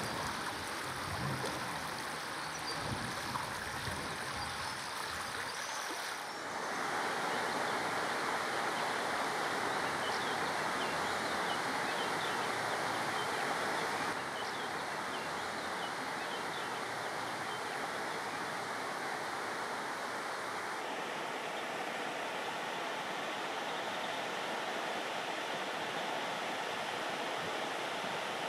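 Steady rush of a shallow river flowing over riffles, with gusts of wind on the microphone in the first few seconds and a few faint high chirps partway through.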